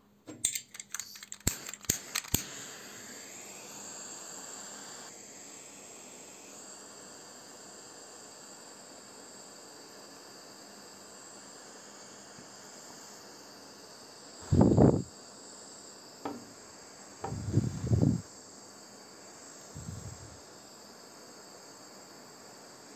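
Butane torch lighter: a quick run of ignition clicks, then a steady hiss of gas. About two-thirds through come a few short, low whooshes as the flame is put to a plastic toy.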